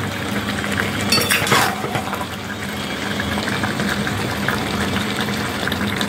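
A thick chicken and potato curry bubbling steadily in a kadai as it simmers, nearly done, with a steady low hum under it and a brief clink about a second in.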